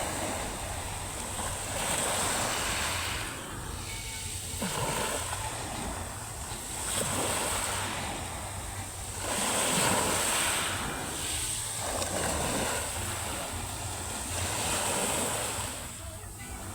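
Sea surf washing onto the shore, waves breaking and receding in swells every two to three seconds.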